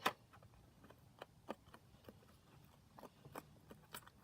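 Homemade glue-and-borax slime being stirred with a stick in a small bowl: scattered soft, sticky clicks and taps, the loudest right at the start.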